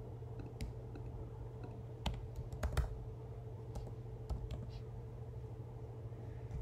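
Typing on a computer keyboard: scattered, irregular key clicks over a faint steady hum, as in typing a web search.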